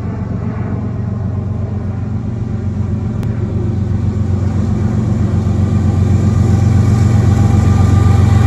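GE ES44AC diesel-electric locomotive's GEVO-16 V16 diesel engine running as it approaches with a coal train, a deep steady drone growing gradually louder.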